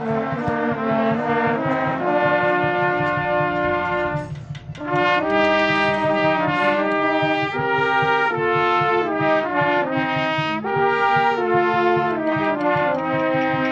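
Symphony orchestra playing a Mexican popular song arranged for orchestra, led by brass (trumpets and trombones) in sustained chords that move through a melody, with a short break about four seconds in.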